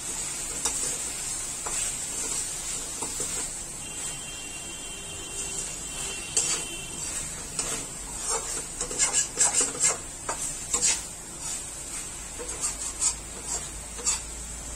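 A spatula stirring okra and onion masala in a steel kadai, scraping and clinking against the pan again and again, mostly in the middle and near the end, over a steady frying sizzle.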